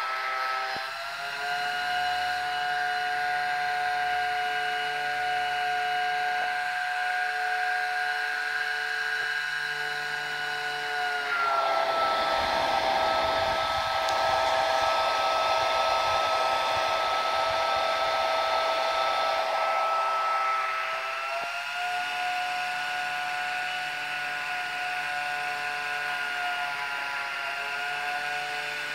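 Air hover soccer disc's small battery-powered fan running with a steady whine. Partway through, its pitch drops slightly and a rushing air noise grows stronger for about ten seconds, then the pitch rises back and the rush fades.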